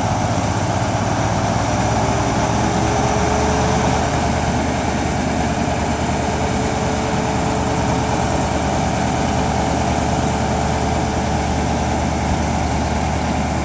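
Great Western Railway High Speed Train (InterCity 125) pulling out of the station, its Class 43 power car's MTU diesel engine running steadily under power with a deep drone.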